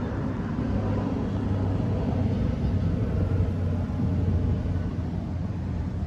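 Low rumble of street traffic, a vehicle engine's drone swelling a little mid-way and easing near the end.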